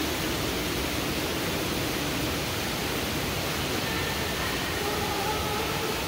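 Steady rush of water running down an indoor tube waterslide, with faint high pitched sounds about four seconds in.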